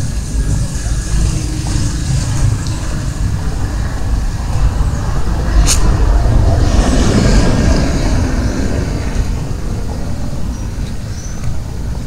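A motor vehicle passing close by in street traffic, its noise swelling from about six seconds in and fading again by about nine, over a steady low traffic rumble. A single sharp click sounds just before the loudest point.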